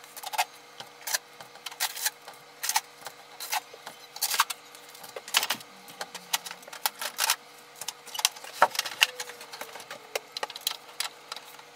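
Blue packing tape being peeled off a printer's plastic casing: irregular crackling with sharp tearing clicks, some louder than others.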